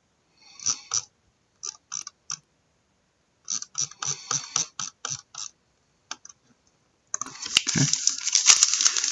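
A retail trading-card box and its packs being opened by hand: scattered crackles and clicks of wrapper and cardboard, then from about seven seconds in a continuous crinkling of a pack wrapper being torn and handled.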